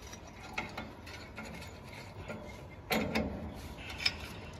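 Irregular clicks, knocks and scraping of a sawdust briquette stick being handled against the steel outlet guide of a briquette machine, the loudest knocks about three seconds in and a sharp click just after four seconds.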